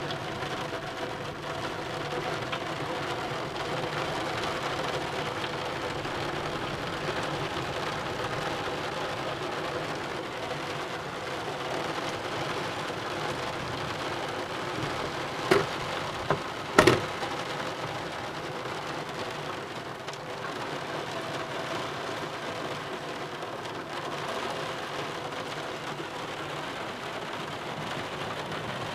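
Steady rain of a thunderstorm, heard through a partly closed roof window. Two brief sharp knocks sound about halfway through, just over a second apart.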